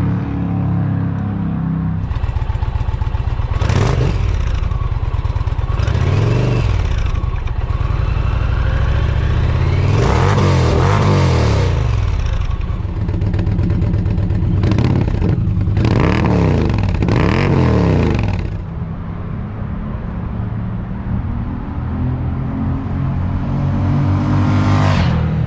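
2020 Indian Challenger's V-twin engine running through Tab Performance slip-on exhausts with Zombie baffles. Its engine speed rises and falls several times, with steadier running in between.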